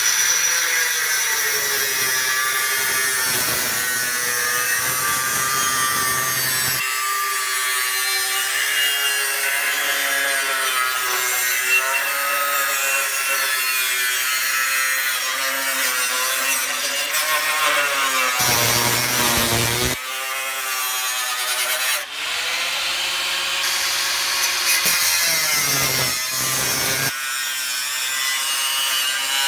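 Corded angle grinder with a cutting disc slicing through a sheet-steel replacement floor pan along a scribed line: the motor's whine and the disc's screech run on continuously, the pitch sagging and recovering as the cut loads the disc.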